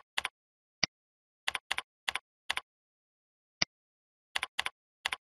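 Computer keyboard keys being typed in short runs of two or three strokes, with dead silence between. Single sharper mouse clicks fall about a second in and again after three and a half seconds.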